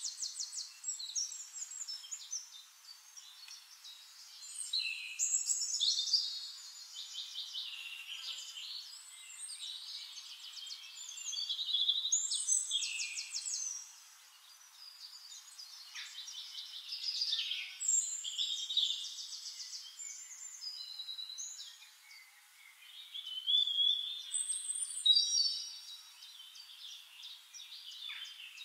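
Several songbirds singing and chirping at once, with fast trills and short warbled phrases that swell into louder bouts every few seconds.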